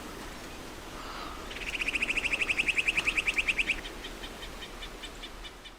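A bird singing a fast trill of repeated high notes, about ten a second, for around two seconds. It tails off into softer, more spaced notes, over steady outdoor background noise.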